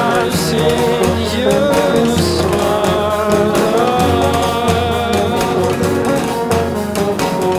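Background song: a voice singing over strummed guitar, with a steady bass and drum beat.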